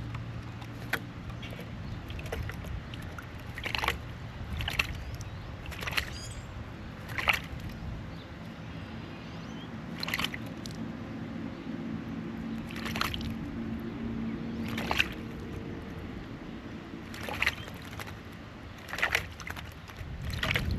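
Water in a backyard drinking bowl sloshing, with about a dozen short, sharp splashes at irregular intervals over a low steady hum.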